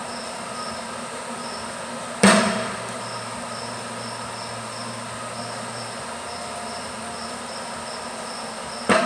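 Two sharp metal-on-metal strikes at a bench vise, about two seconds in and near the end, each with a brief ring. Underneath runs a steady shop hum with a faint repeating high chirp.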